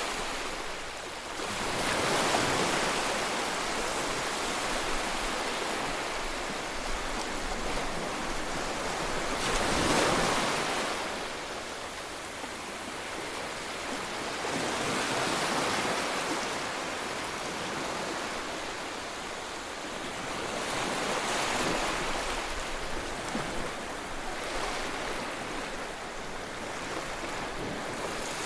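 Open-sea waves washing, with wind on the microphone; the noise swells and eases every few seconds.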